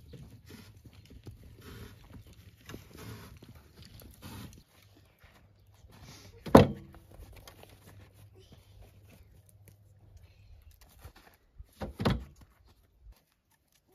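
Cut firewood logs dropped into a steel wheelbarrow: one loud thunk about six and a half seconds in, and a few more knocks near the end. Faint crunching and scuffing in snow during the first few seconds.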